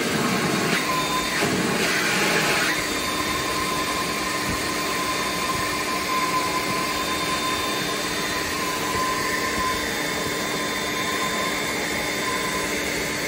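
Battery-powered leaf blower running steadily with its nozzle held over a 2-inch PVC conduit, blowing air down the pipe to push a plastic bag and pull string through the underground run. A steady rush of air with a faint fan whine, easing slightly about two and a half seconds in.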